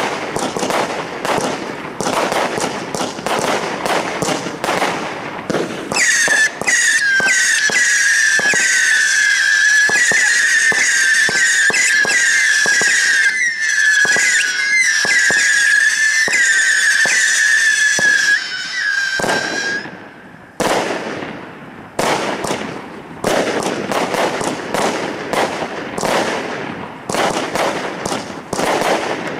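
Dynamic Fireworks Optimum firework cake firing. It starts with dense crackling and popping. From about six seconds in, a shrill, wavering whistle runs over the crackle for some thirteen seconds. After a brief dip, dense crackling returns.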